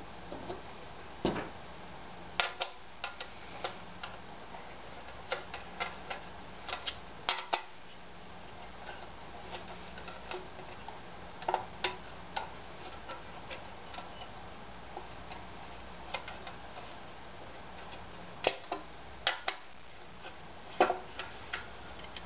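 Irregular small clicks and taps of bolts and small hardware being handled and fitted into a sub-bed plate during assembly, over a steady low hum.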